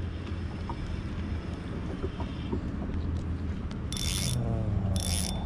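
A boat engine runs with a steady low hum. Two short bursts of hiss come about four and five seconds in.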